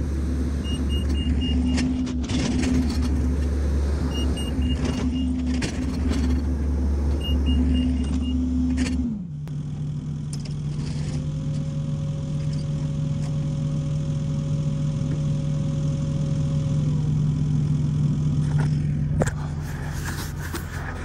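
Compact track loader's diesel engine running hard while it works a mulch pile, with three short runs of high beeping from its reverse alarm in the first eight seconds. About nine seconds in the engine speed drops and it runs on steadily at a lower pitch.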